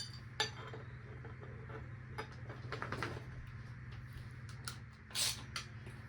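Short metallic clicks and taps of bicycle crank arms being handled and slid onto a bottom bracket spindle, with a cluster of quick clicks about halfway and a brief louder scrape near the end, over a steady low hum.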